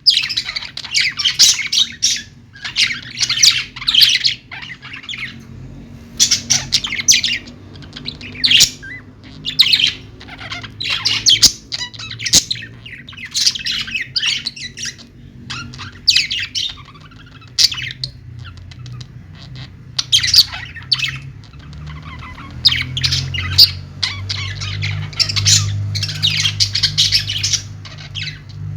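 Small pet parrots chirping and squawking in repeated shrill bouts, several calls at a time with short pauses between, over a steady low hum.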